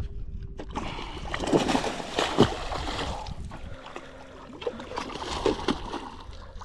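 A hooked barramundi thrashing and splashing at the water's surface beside the boat during the fight. There are several sharp splashes about two seconds in, and smaller ones a couple of seconds later.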